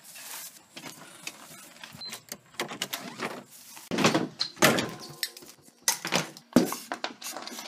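A bicycle being wheeled through a doorway and set down on a wooden floor: a string of knocks, bumps and rattles, loudest about four to five seconds in and again around six seconds.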